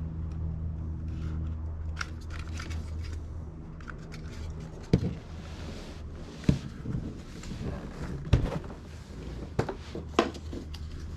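Sharp clicks and knocks of hard plastic trim being handled and worked loose on a car's door card, over a steady low hum that fades out about four and a half seconds in.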